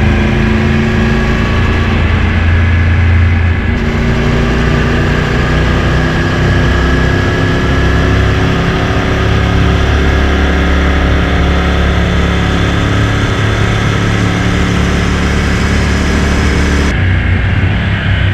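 Motorcycle engine running while riding, with wind rush across the microphone. The engine note drifts slightly with speed and shifts abruptly about four seconds in and again near the end.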